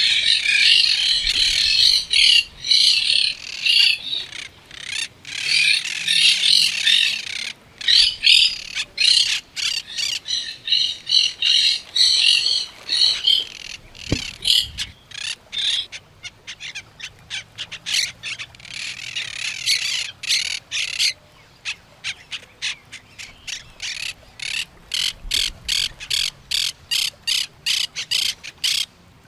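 Birds chirping and parrots squawking in a dense chorus of high calls. Past the middle the chorus thins to a quick string of short, repeated calls.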